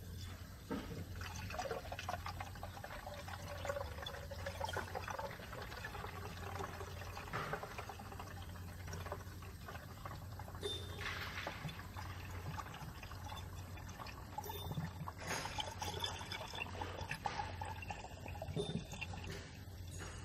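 Pink coolant pouring in a steady stream into the plastic coolant expansion tank of a Porsche 996 Turbo, topping up the cooling system during air bleeding. A steady low hum runs underneath.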